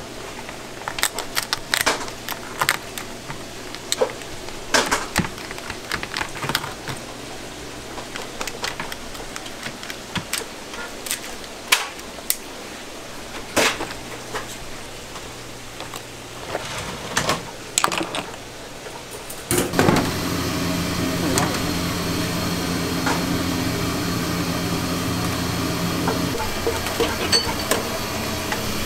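Kitchen scissors snipping through a steamed crab's shell, with scattered clicks and knocks as pieces of shell and crab legs are handled and packed into a paper box. About two-thirds of the way through, a steady low machine hum from a plastic food-wrap machine starts and runs for several seconds before easing off near the end.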